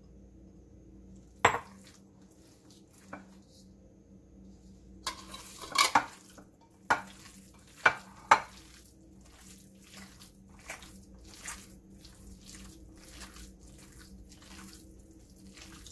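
A sharp clink of kitchenware against the glass dish about a second and a half in, then wet squelching as a hand squeezes and kneads ground pork with chile paste and vinegar for homemade chorizo: a few louder squishes, then a steady rhythm of about two a second.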